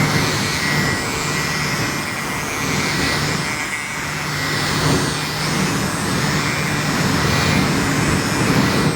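Small electric fan of a mini portable air conditioner running, a steady rush of blown air with a low motor hum and a faint high whine, starting suddenly.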